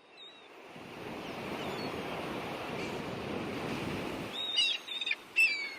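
A steady rush of surf fades in over the first second, with birds chirping; a few louder chirps come near the end.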